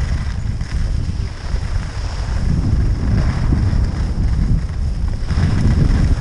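Wind buffeting the microphone during a fast ski descent, a heavy low rumble, with the hiss of skis running over packed snow.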